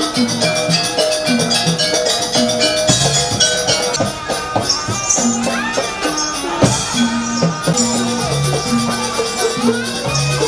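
Live jaranan dance music from a gamelan-style ensemble: tuned gong-chime notes repeat in a steady pattern over low drum strokes, with a rattling jingle on top.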